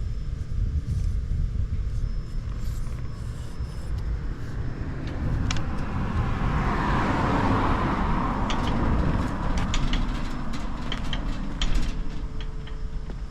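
Honda Ape 50's single-cylinder four-stroke engine, bored up to 82 cc, running through an open Supertrap full exhaust, with a steady low pulse and a louder swell about halfway through. It has been started from cold and is running without abnormal noise.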